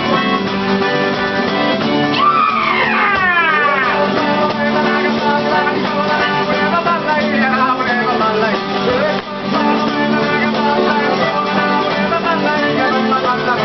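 Pizzica folk dance music led by strummed guitar, with a run of falling, sliding notes about two seconds in.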